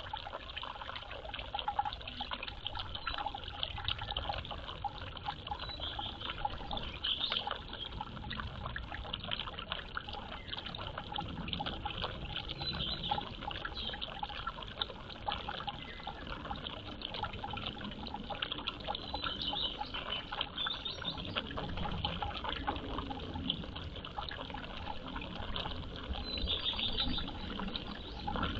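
Water trickling steadily, with a dense patter of small drips and splashes.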